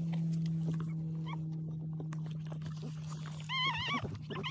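Newborn XL Bully puppies squeaking: a few short faint squeaks, then a loud wavering high-pitched cry near the end, over a steady low hum.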